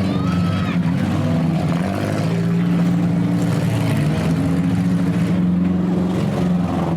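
Engines of several stock compact demolition derby cars running and revving together, their pitches rising and falling against each other.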